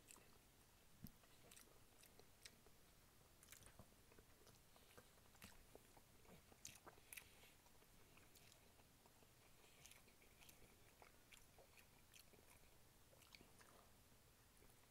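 Faint chewing and mouth sounds of a person eating, with scattered small wet clicks and lip smacks.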